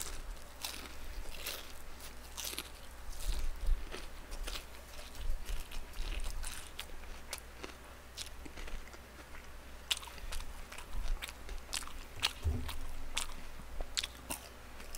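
Close-miked chewing of crispy boneless fried chicken: irregular crisp crunches and clicks of the batter between the teeth, bite after bite.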